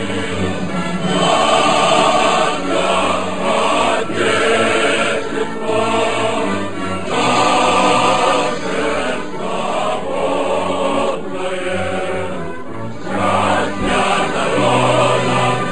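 Background music: a choir singing in long held phrases.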